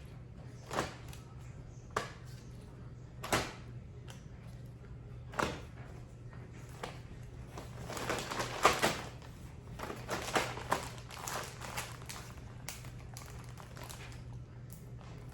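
Knife cutting elephant garlic scapes on a cutting board: single sharp knocks a second or two apart, then a busier run of knocks about eight to eleven seconds in, over a low steady hum.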